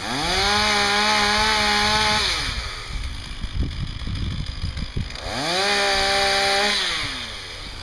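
Gas chainsaw revved twice, each time held at full throttle for about two seconds before dropping back to a rough idle.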